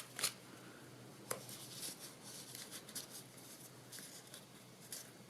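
Faint handling sounds of pieces of card and paper being moved about on a tabletop while being arranged, with a few light taps and rustles.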